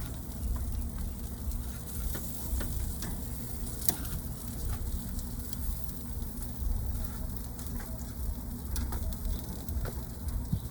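Seasoned chicken sizzling on a barbecue grill, with scattered crackles and pops over a low steady rumble.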